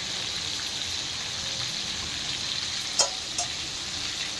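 Fish steaks shallow-frying in hot oil in a pan: a steady sizzle, with two sharp pops about three seconds in.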